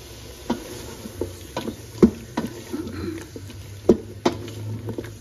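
Wooden spoon stirring chunks of bottle gourd in a metal pot, knocking against the pot at irregular moments, over a light sizzle of the frying tomato masala.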